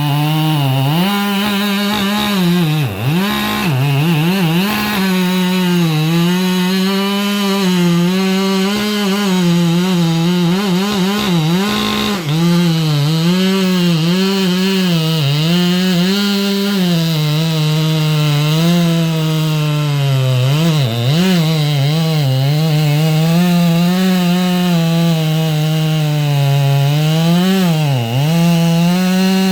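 Two-stroke chainsaw running at high throttle and cutting through a big round of firewood. Its pitch dips briefly and recovers several times as the chain bogs in the cut.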